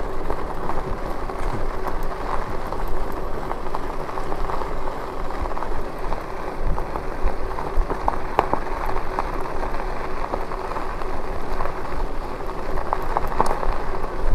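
E-bike tyres rolling over a rough road surface, giving a steady gritty crackle, with a steady hum underneath.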